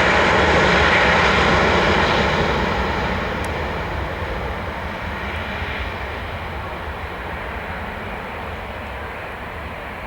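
Twin IAE V2500 turbofan engines of an Airbus A321-231 passing by: a loud, steady jet rush that fades from about two seconds in as the aircraft moves away, the higher sounds dying out first.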